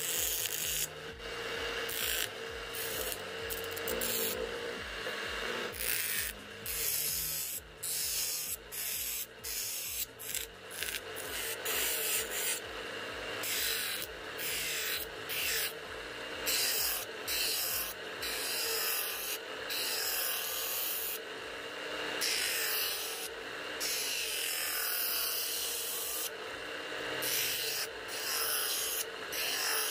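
Homemade mini bench grinder driven by a 550 DC motor, with a workpiece pressed against the spinning abrasive wheel again and again in short strokes. Each stroke gives a gritty rubbing and grinding over the motor's steady hum.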